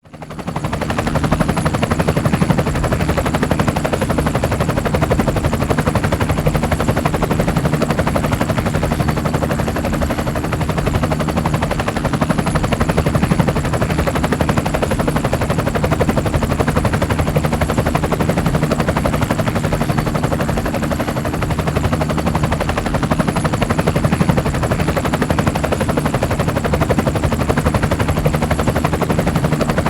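Helicopter in steady flight: a rapid, even chop of rotor blades over a constant low engine hum. It rises to full level within the first second and then holds steady.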